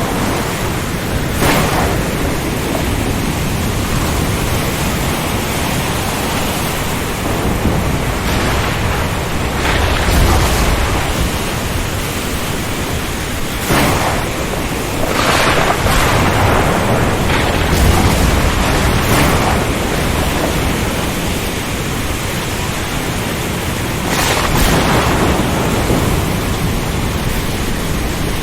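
Stormy sea ambience: a dense, steady hiss of heavy rain and wind, broken every few seconds by louder rushing crashes, with deep rumbles about a third and two thirds of the way through.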